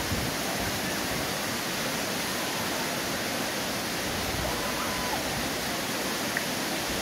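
Steady rush of river water flowing below a suspension bridge, with a few faint short whistles over it.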